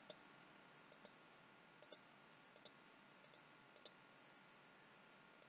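Faint computer mouse clicks, about five spread unevenly over several seconds, in near silence.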